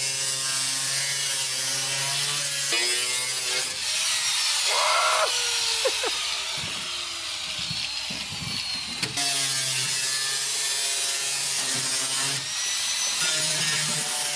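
Power tool cutting a hole through a car's rear bumper, running with a steady high whine and grinding noise. It stops about three seconds in, with scattered knocks and rattles while it is off, and runs again from about nine seconds in.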